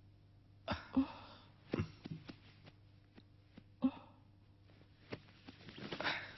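Quiet room tone broken by a few brief soft sounds, with a breathy sigh building near the end.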